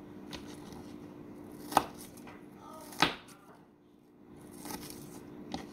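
Kitchen knife dicing red onion on a cutting board: a handful of separate, irregular chopping knocks, two louder ones about two and three seconds in.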